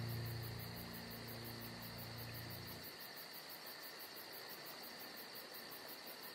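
Insects chirping in a fast, even pulse, with a low held music note fading out about three seconds in.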